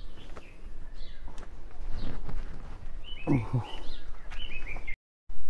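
Small birds chirping over a steady outdoor background, with a quick run of short falling chirps in the last couple of seconds. The sound drops out briefly just before the end.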